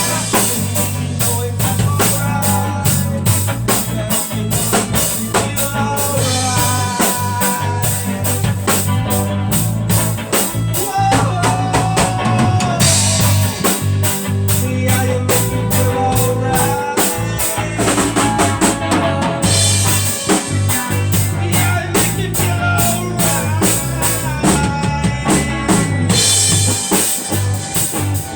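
Band music: a drum kit keeps a steady beat with rimshots and snare over a low bass line, with a melody above it.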